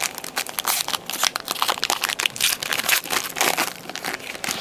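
Crinkling and crackling of a trading card pack's wrapper, handled in rapid, irregular crackles as the pack is opened and crumpled.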